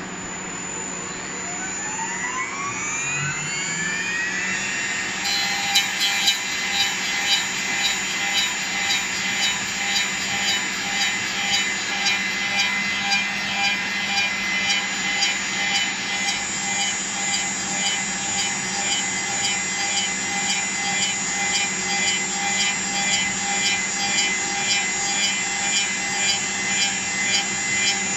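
CNC wooden-handle lathe machining a paint-brush handle: a motor whines up in pitch over the first few seconds, then the cutter works the spinning wood with a steady cutting noise that pulses about one to two times a second under a high, steady whine.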